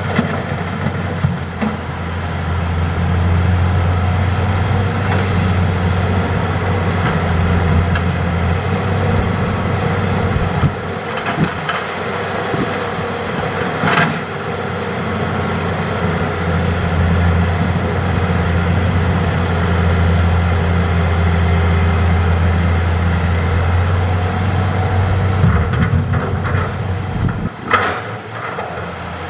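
Hitachi hydraulic excavator's diesel engine running steadily under working load, with a sharp knock about midway and a few more knocks near the end.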